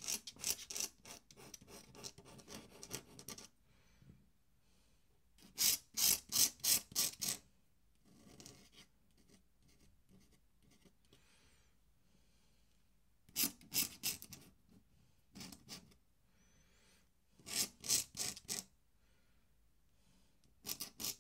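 Metal nib of a dip pen scratching across paper in Indian ink, in quick strokes. The strokes come in about six short bursts of several strokes each, with quiet pauses between.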